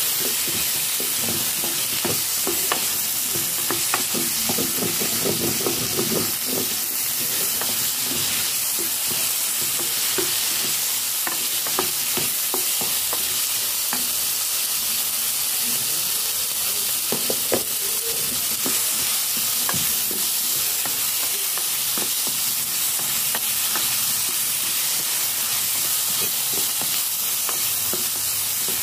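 Meat, tomatoes and bell peppers sautéing with a steady sizzle in a nonstick pot, while a wooden spatula stirs them, scraping and knocking against the pot now and then.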